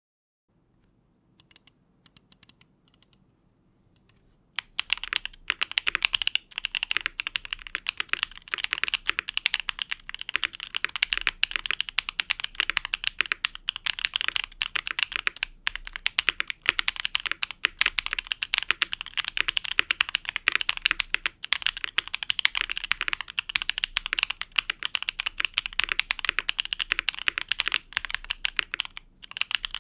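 Typing on the MoeeTech Glitter65 R1, a plateless, gasket-mounted 65% mechanical keyboard, fitted with pre-lubed Akko Cream Blue Pro V3 tactile switches, which have a clacky sound signature, and double-shot ABS keycaps. A few faint keystrokes come first, then from about five seconds in a steady run of fast typing.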